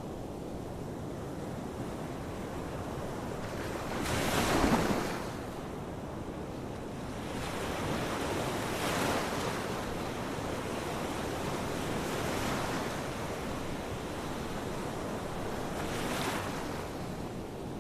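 Ocean waves breaking on a shore: a steady wash of surf, with one loud wave crashing about four seconds in and smaller breaks following every three to four seconds.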